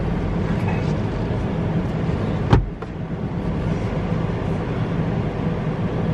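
Steady hum and rush inside a car's cabin as the car idles and creeps forward, with the air conditioning running, and a single sharp click about two and a half seconds in.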